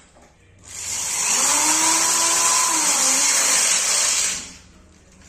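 Power drill-driver running for about three and a half seconds, its motor whine rising and then falling as it drives a screw into the wooden bed frame.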